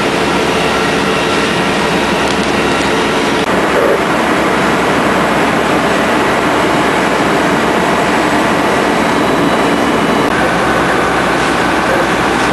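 A heavy engine running steadily under a loud, constant rushing noise; its tone shifts about three and a half seconds in.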